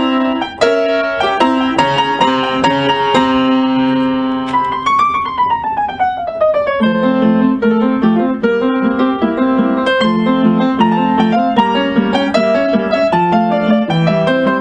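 Background piano music: a run of notes, a note sliding downward about five seconds in, then repeated low chords.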